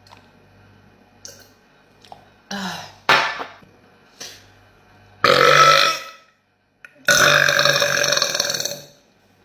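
A woman belching several times: two short burps around two and a half and three seconds in, a louder one about five seconds in, and a long drawn-out belch of about two seconds near the end.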